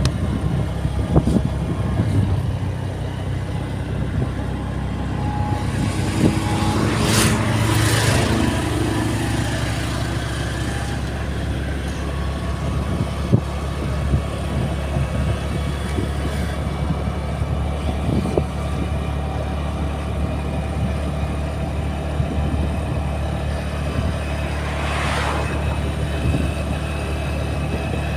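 Road vehicles running, a steady low engine and road rumble, with a louder swell of a vehicle going by about seven seconds in and another near the end.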